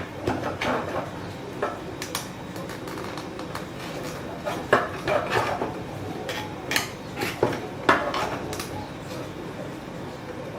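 Irregular sharp clicks and knocks of hard plastic parts as a 3D-printed stitching pony's lever tightener is worked and readjusted, the loudest knocks about halfway through and near the end.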